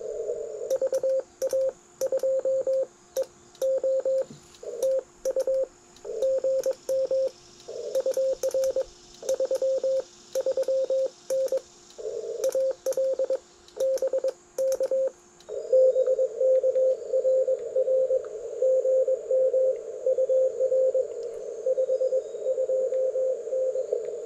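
Morse code (CW) from a ham radio transceiver: a single tone near 500 Hz keyed in dots and dashes, calling CQ on the 15-metre band, with quiet gaps between characters. About fifteen seconds in, the keying stops. A steady hiss from the receiver's narrow CW filter then carries on, with a weaker keyed tone in it.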